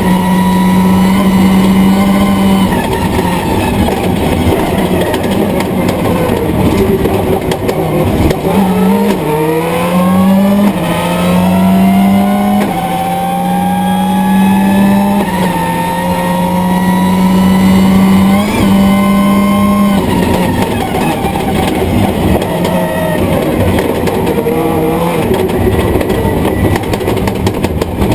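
Subaru Impreza S11 WRC's turbocharged flat-four engine driven hard on a rally stage, heard from inside the car. The engine note climbs repeatedly, with short dips at each gear change.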